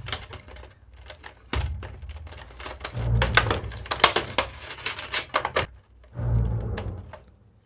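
Clear plastic blister packaging crackling and clicking as fingers pry action-figure accessories out of it, with a few dull bumps from the packaging being handled.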